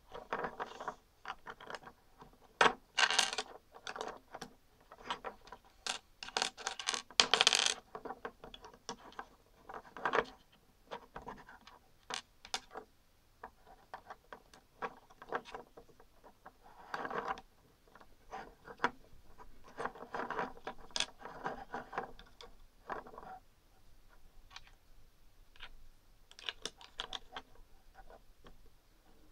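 Plastic LEGO bricks being handled and pressed together: irregular sharp clicks and short clattering rattles, with louder bursts of clatter about three and seven seconds in.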